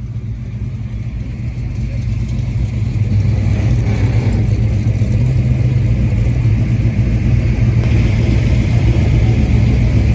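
A car engine rumbling at low speed with a deep, steady note; it grows louder over the first three seconds as the car draws near, then holds.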